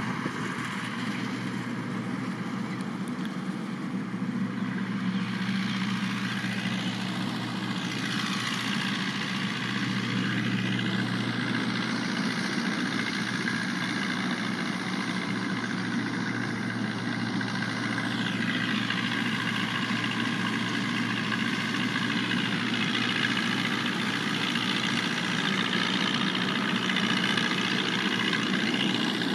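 Tractor engine running steadily while driving a straw chopper machine that cuts wheat stubble and blows the chopped straw into a trolley: a continuous mechanical drone with a dense hiss over it.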